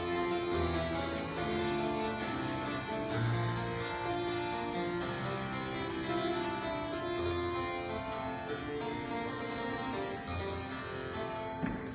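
A harpsichord being played solo: a continuous stream of plucked notes with chords sounding together.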